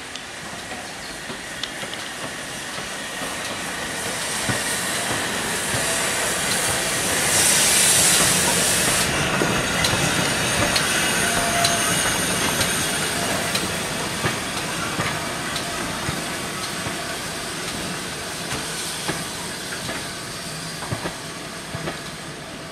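GWR Hall-class 4-6-0 steam locomotive 'Hagley Hall' passing close with its train, getting louder as it nears. A loud hiss of escaping steam comes about seven seconds in and lasts a couple of seconds. The coaches' wheels then click over the rail joints as the sound slowly fades.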